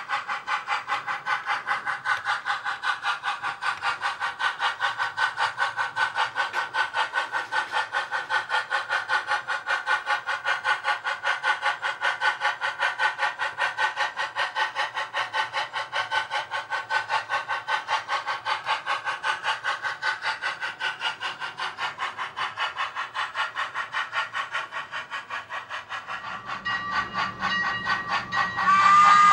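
Sound-equipped model steam locomotive chuffing steadily at about three beats a second, with the locomotive's whistle starting to blow near the end.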